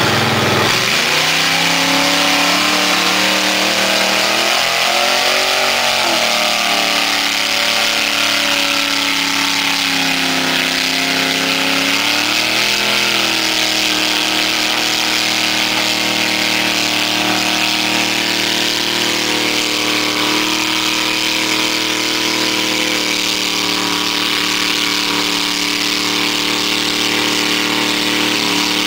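Chevrolet S-10 mud truck's engine running loud under hard load as its 44-inch Boggers tires spin through deep mud. The revs dip and climb a few times in the first dozen seconds, then hold steady and high.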